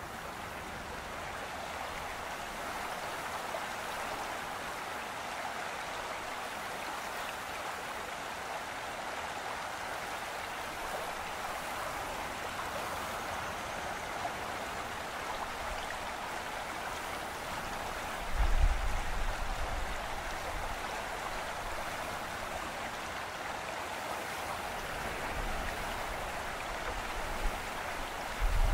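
Small forest stream running over rocks into a lake: a steady rushing babble. About eighteen seconds in, and again at the very end, a brief low rumble stands out.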